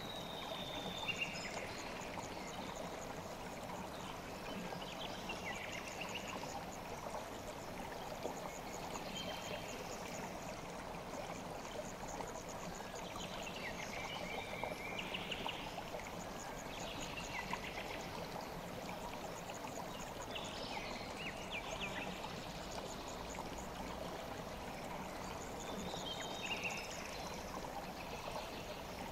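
River water flowing steadily, with short high chirps every few seconds.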